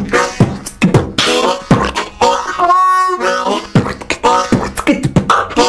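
Harmonica played with beatbox woven into it: short harmonica notes alternate with sharp mouth-made drum hits in a steady rhythm, with one longer held note about halfway through.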